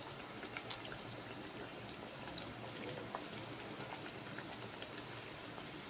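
Oil sizzling and bubbling around potato cutlets frying in a kadai: a steady hiss with many small, scattered crackles.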